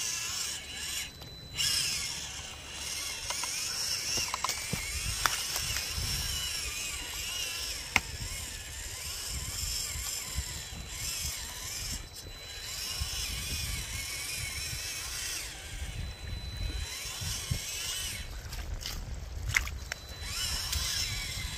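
CR18P Trail Hunter RC crawler's small electric motor and drivetrain whining as it crawls through shallow water and wet leaves, the whine rising and falling in pitch with the throttle, over a steady high tone and a low rumble, with a few short clicks.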